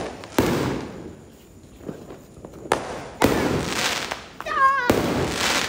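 Aerial fireworks bursting overhead: four sharp bangs, about half a second, nearly three, just over three and about five seconds in, each trailing away over a second or so.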